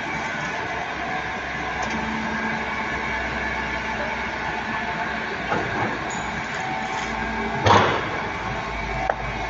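Hydraulic crawler anchor drilling rig running: a steady mechanical drone with several steady whining tones over it, and a brief, louder rush of noise about eight seconds in.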